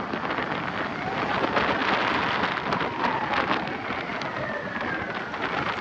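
Road traffic noise with wind on the microphone, swelling about two seconds in as a vehicle goes by, with a faint siren wailing up and down underneath.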